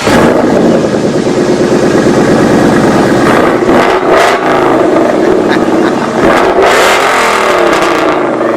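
Car engine revving loud, its pitch rising and falling repeatedly, starting suddenly.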